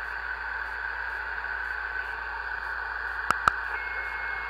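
Steady hiss of band static from a Realistic TRC-451 CB radio receiving lower sideband on channel 38 with no station coming through. Two sharp clicks come close together about three and a half seconds in, and a faint steady whistle runs near the end.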